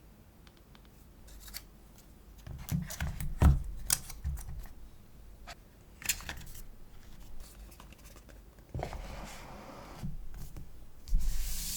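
Hands handling an iPhone SE and its packaging: a run of sharp clicks and knocks, then a longer rustling, rubbing noise that grows louder near the end.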